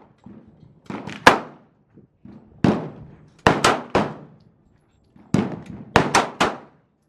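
Gunfire from other shooters at the range: about a dozen sharp reports, each with a short echoing tail, some in quick strings a fifth of a second apart.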